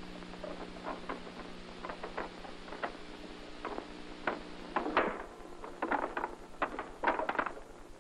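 Old film soundtrack with a steady mains hum and hiss, and scattered light clicks and taps over it. The taps grow denser and louder about five seconds in.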